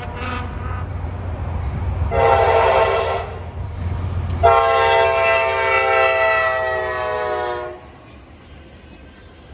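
Diesel freight locomotive's air horn sounding a chord in several blasts for the grade crossing: a short one at the start, another about two seconds in, then a long blast held about three seconds whose pitch sags slightly as the locomotive passes close by. A low diesel engine rumble runs under the first half, and after the horn stops only the passing train's quieter rumble is left.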